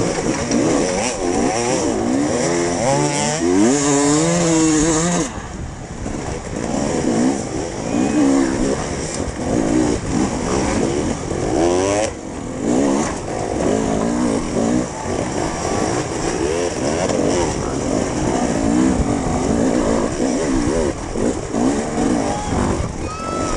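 KTM EXC enduro motorcycle engine revving in short throttle bursts, its pitch repeatedly rising and falling, with other dirt bikes' engines revving close by.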